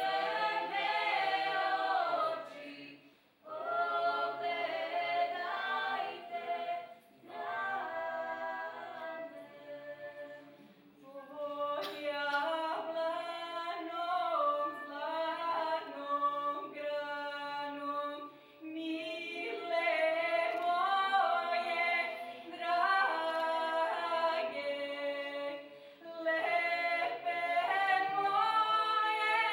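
Choir of young voices singing, with a female soloist out in front, in phrases broken by several short pauses.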